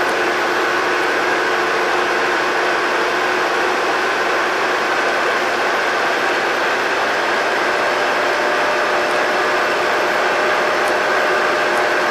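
Engine of a KMB ASUD-class double-decker bus running at a steady pitch, with a constant whine over a broad mechanical hum.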